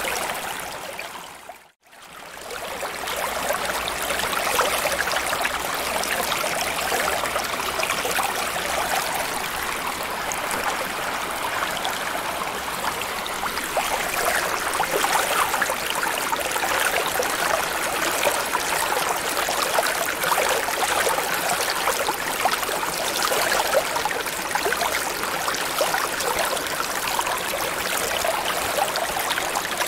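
Steady flowing, trickling water noise of an underwater ambience track. About a second in it fades almost to silence, then swells back up within a second and carries on evenly.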